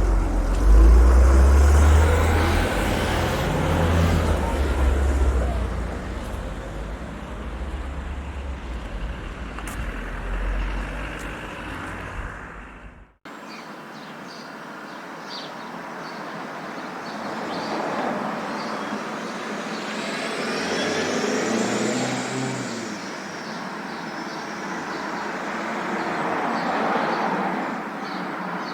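Two vehicle sound effects back to back. First a bus's engine with a deep rumble, loudest in the first few seconds and then easing off, cutting off abruptly about 13 seconds in. Then thinner road-vehicle noise without the deep rumble, with a whine that rises and falls about 20 to 23 seconds in.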